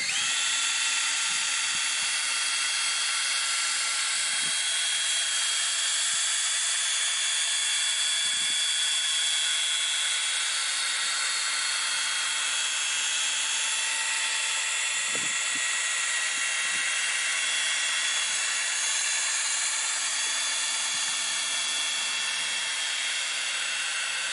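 Cordless drill running at a steady speed, spinning a 3-inch black foam polishing pad loaded with polishing compound against a plastic taillight lens. It gives an even motor whine that holds the same pitch throughout.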